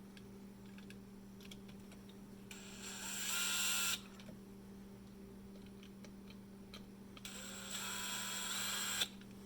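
Cordless drill running Phillips screws back into a car door's window-switch panel, in two bursts of about a second and a half each, a few seconds apart. A faint steady hum sits underneath.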